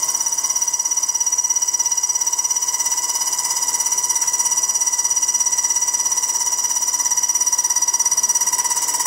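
Steady high-pitched electric whine made of several fixed tones, with a fast, even pulse, from a high-speed milling spindle on a robot arm.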